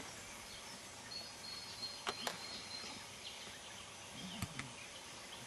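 Faint outdoor ambience: a steady background hiss with a faint high whistle about a second in, and a few sharp clicks around two seconds in and again near four and a half seconds.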